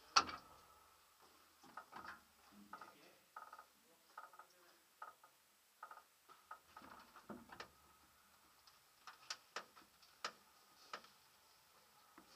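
Irregular light clicks and knocks with a few short squeaks as a parked ultralight aircraft is handled and turned; its engine is not running.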